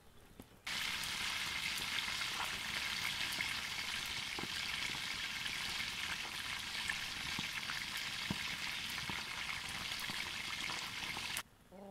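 Salmon fillets frying in hot oil: a steady, dense sizzle full of small crackles and pops. It starts abruptly a moment in and cuts off suddenly shortly before the end.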